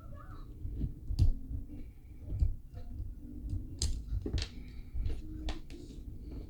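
Scattered sharp clicks and knocks, about five or six of them, over a low background rumble.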